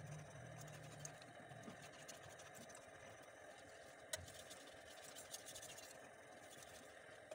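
Faint strokes of a butcher knife's blade scraping across a wet whetstone during sharpening, with one sharp tick about four seconds in. A low hum fades out about a second in.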